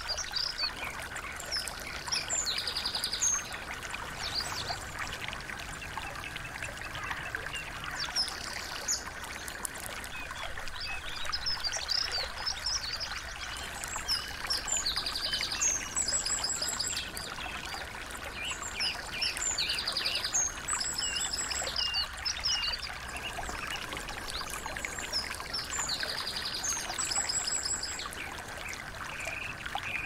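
Small songbirds chirping and giving quick trills of rapidly repeated notes over the steady trickle of a small stream.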